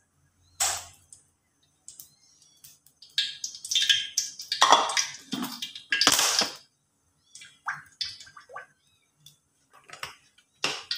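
Cooking oil being poured into a metal wok: several separate splashing pours with small knocks of the container in between.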